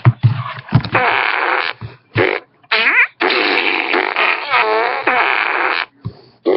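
A string of fart noises made by a person: a few short blasts, then one long continuous one lasting about two and a half seconds, its pitch wobbling up and down.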